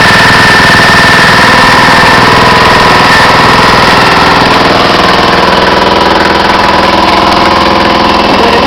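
An engine running steadily and loudly, with a high whine on top that slowly drops a little in pitch.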